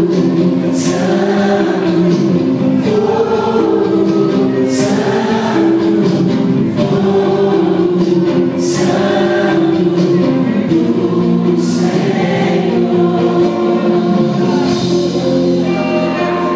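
A choir sings a slow worship song over long sustained chords. Near the end the voices fade out, leaving the held chords.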